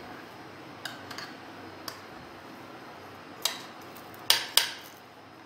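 Metal fork clicking and clinking against an electric sandwich maker's plates as cooked puffs are lifted out: scattered light clicks, then two sharp ones close together about four seconds in.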